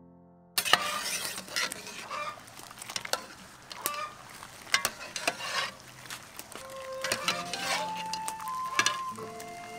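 Metal ladle stirring and scooping vegetables in a pot of boiling water: irregular clinks and scrapes of metal on the metal pot over the bubbling of the water.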